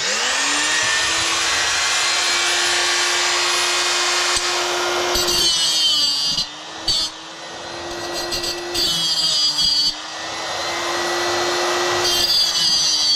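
Small electric grinder starting up and running at speed, then grinding against metal in several short passes from about five seconds in. Its motor pitch dips and wavers under load during the passes.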